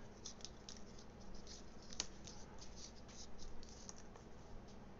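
Alligator-clip test leads being handled on a workbench: faint scratching and light ticks, with one sharper click about two seconds in.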